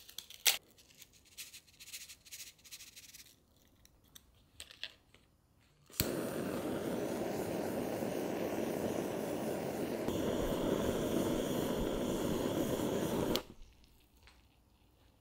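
Butane kitchen blowtorch lit with a click about six seconds in, then a steady flame hiss for about seven seconds as it caramelises the sugar on top of a crème brûlée, cutting off near the end.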